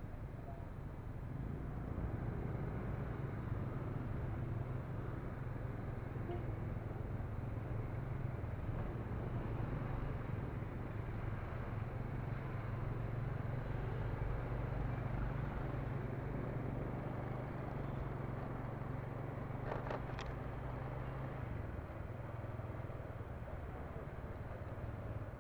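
Steady street traffic noise, with a low motor hum over road noise. There is a brief clatter about twenty seconds in, and soon after it the low hum drops away.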